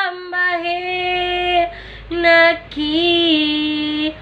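A woman singing solo with no accompaniment, in long held notes, each phrase broken by a short breath.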